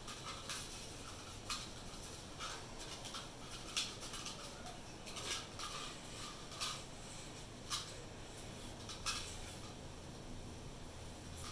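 Faint, irregular light clicks and ticks, roughly one a second, over low steady background noise.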